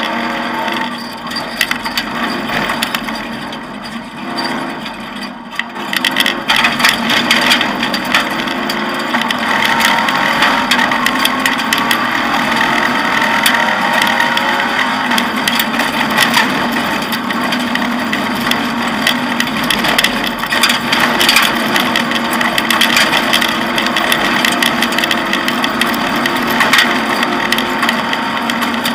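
Off-road rally car heard from inside the cockpit at speed on a dirt track: engine pulling through the gears with its pitch rising and falling, over a constant clatter and rattle from the cabin and stones striking the car. Quieter and more broken for the first few seconds, then louder and steady from about six seconds in.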